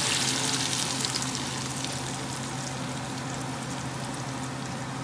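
Blended red chile salsa sizzling in hot oil in a pot as it is poured over browned garlic and onion, with fine crackles. The sizzle fades steadily as the salsa settles in the pot.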